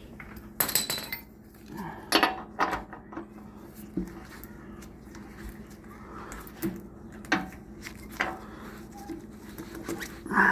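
Metal hand tools clinking and knocking against motorcycle wheel hardware, in irregular sharp strikes, as the front wheel is tightened back in place. A steady low hum runs underneath.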